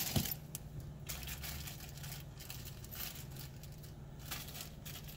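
Clear plastic packaging crinkling and rustling in a series of short crackles as it is handled and searched, over a steady low hum.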